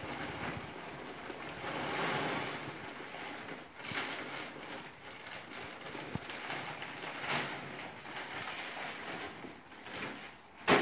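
Wood pellets pouring from a plastic bag into a fabric stove hopper: an uneven, rain-like hiss that swells and eases several times. A single sharp knock near the end.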